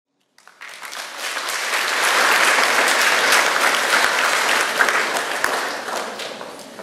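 Audience applauding, swelling over the first two seconds and tapering off near the end.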